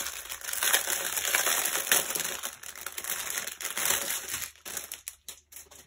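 Small clear plastic bags of diamond painting drills crinkling and rustling as they are handled, thinning to a few scattered crackles near the end.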